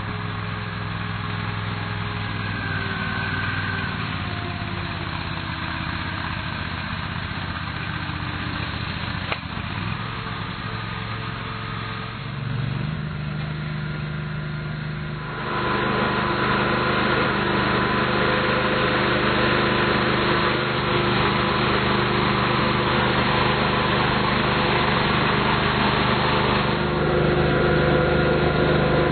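Engine running steadily; its pitch steps up about twelve seconds in, and it gets louder a few seconds later as it works harder.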